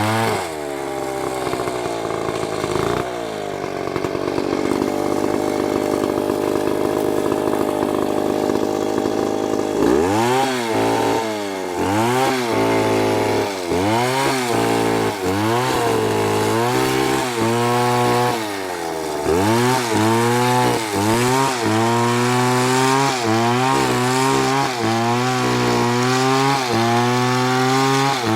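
A STIHL MS720 two-stroke chainsaw cutting wood. For about the first ten seconds it holds a steady pitch under load. After that its engine speed dips and recovers over and over, roughly once a second, as the chain bites and frees in the cut.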